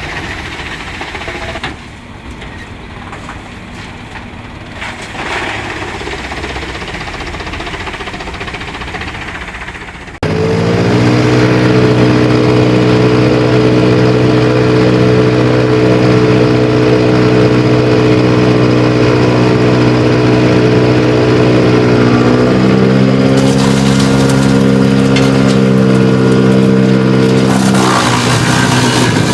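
Heavy machinery running: a moderate, noisy mechanical sound that changes abruptly a couple of times, then about ten seconds in a much louder, steady engine drone cuts in. Its pitch steps to a new level a little past two-thirds of the way through.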